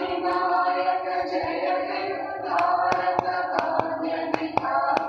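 A national anthem from a cricket match broadcast, playing through a television speaker in a room: held sung and instrumental notes. Irregular sharp clicks come in over the second half.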